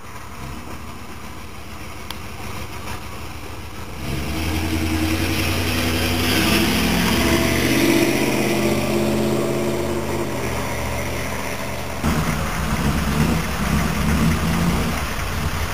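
Muscle car V8 engines running. A low steady idle gets louder about four seconds in, revs up and eases back down in the middle, and changes abruptly near the end to a rough, uneven idle.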